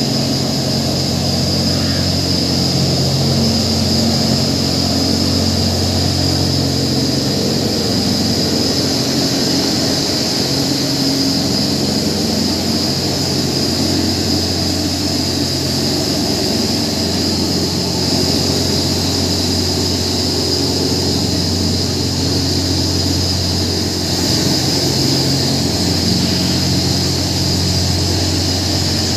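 Decanter centrifuge in a mobile container unit running steadily: a continuous machine hum with a constant high whine on top.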